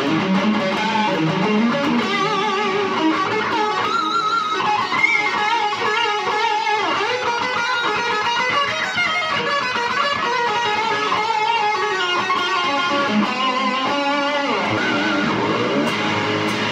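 Kramer Pacer Classic electric guitar played through a Boss DS-1 distortion pedal into a delay: continuous lead lines, with vibrato wavering the held notes.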